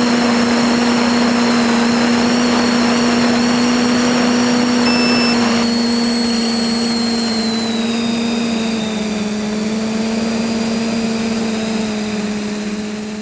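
A TBS Discovery quadcopter's electric motors and propellers humming steadily in flight, with a rushing noise over it. The rushing lessens about six seconds in, and the hum dips slightly in pitch later on.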